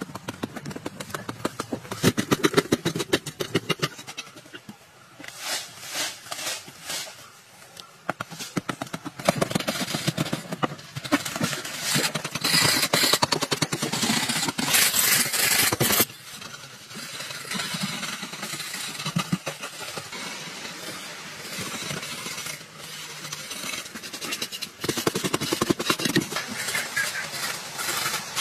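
Hand-held hoe blade chopping and scraping into hard, dry clay earth, many quick strikes with loose soil crumbling away. The strikes come thickest in the first half and ease off suddenly a little past the middle.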